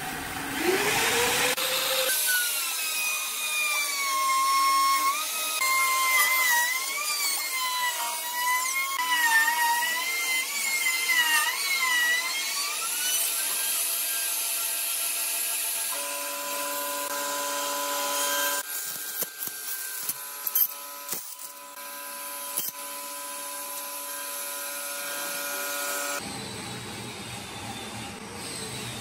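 Electric trim router spinning up, then cutting a rabbet along the edge of a pine board: a high whine that wavers in pitch as the bit bites. Later the whine is steadier, with a few sharp clicks.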